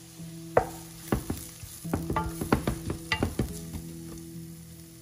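Wooden spatula stirring and scraping coriander powder and turmeric into fried onions in a hot frying pan, the spices starting to roast in the oil. It makes a quick string of knocks and scrapes against the pan from about half a second in to nearly four seconds.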